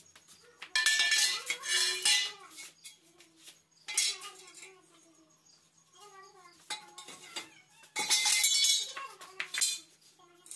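Lengths of square steel tubing clattering and clanking as they are dropped and laid on a concrete floor. There are several bouts: two close together near the start, a short one around the middle, and a longer clatter near the end.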